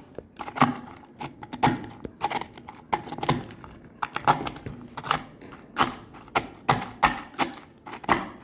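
Oreo cookies being smashed into crumbs: a run of irregular sharp knocks, roughly two a second.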